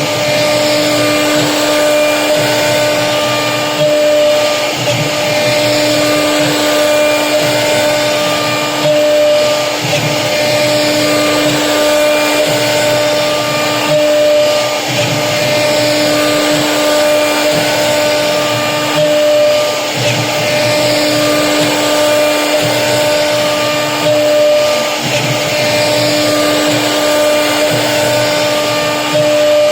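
CNC router spindle running and its bit cutting into HDHMR board: a loud, steady motor whine with a rasping cutting noise, swelling and easing every few seconds as the tool moves through the cut.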